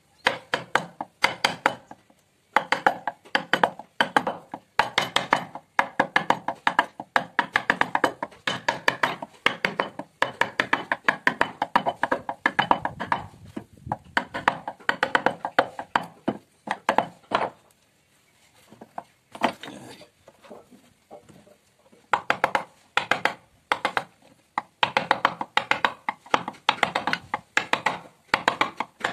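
Mallet striking a carving chisel as it cuts into a wooden panel: rapid knocks, several a second, in runs broken by short pauses, with a longer lull past the middle.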